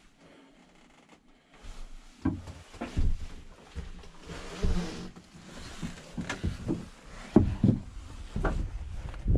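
Quiet at first, then scattered knocks, clicks and thuds as someone moves about on the wooden boards of a small plank cabin and handles things, ending with stepping out of the hut.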